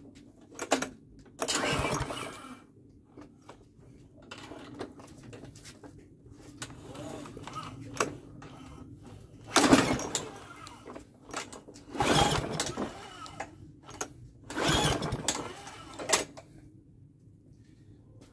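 Recoil pull-starter of a Webb lawnmower's 132cc DVO130 petrol engine pulled about four times, each pull a rasp of about a second as the engine turns over, without the engine catching and running on choke. The owner suspects the choke lever is not moving far enough.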